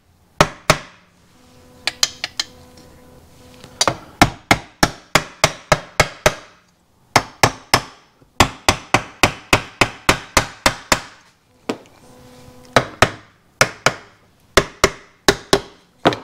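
Soft-faced plastic mallet tapping on a Yamaha HS1 90 twin's aluminium crankcase to drive the case halves together. Sharp taps come in quick runs of about three or four a second, with short pauses between runs.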